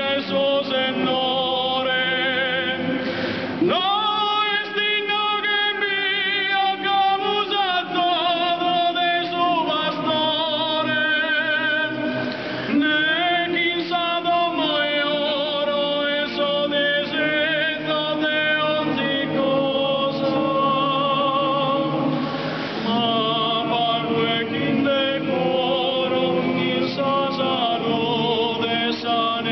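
Sardinian folk choir singing in harmony, several voices holding long notes with vibrato in phrases of about nine seconds, with short breaks between phrases.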